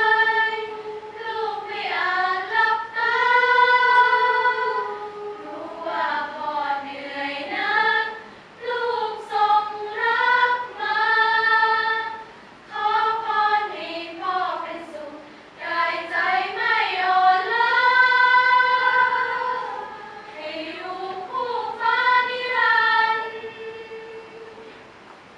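Female student choir singing unaccompanied in harmony, with long sustained notes. It closes on a long held note that fades out near the end.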